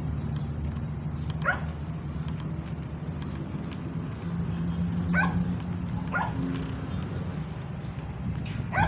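A large dog barking: four single, sharp barks a second or more apart, over a steady low hum.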